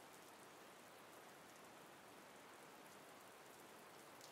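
Faint, steady recorded rain sound effect: an even hiss of rainfall with light drop ticks in it.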